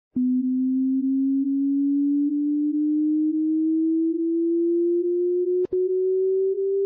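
Hearing-test sine tone: a single pure tone that starts with a click and glides slowly and steadily upward in pitch, from a low note to a somewhat higher one. About five and a half seconds in it drops out for an instant with a click.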